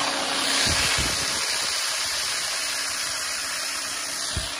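Electric demolition hammer (1500 W, 220 V, six-speed) running unloaded at a high speed setting: a steady motor buzz with the hammer mechanism rattling, easing off slightly toward the end, with a couple of low knocks.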